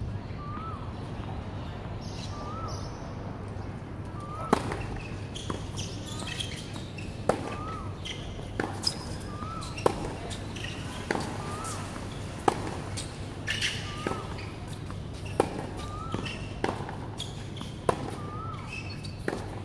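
Tennis ball struck back and forth by rackets in a rally, starting about four seconds in, with a sharp hit roughly every one and a half seconds and softer bounces on the hard court between. A short high chirp repeats in the background about once a second over a low steady hum.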